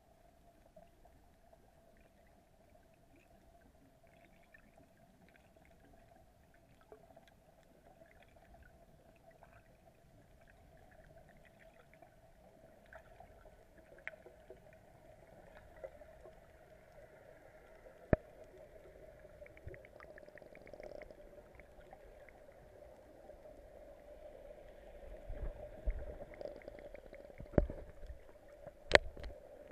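Muffled underwater sound picked up through an action camera's waterproof housing: a steady hum with scattered faint clicks. It grows louder over the last few seconds, with a few sharp knocks near the end as the camera nears the surface.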